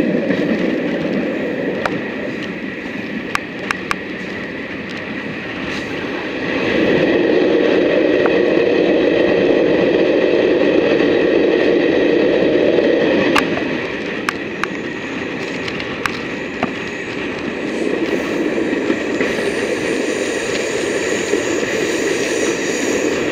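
Train hauled by an Irish Rail 071 class diesel locomotive running along the line, heard from a window: a steady rumble with scattered sharp clicks. The rumble swells for several seconds about a third of the way in, then drops back.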